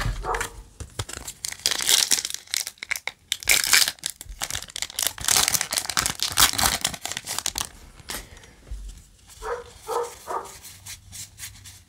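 Foil trading-card booster pack wrapper crinkling and being torn open. The crackle is loudest through the middle, then gives way to softer rustling near the end.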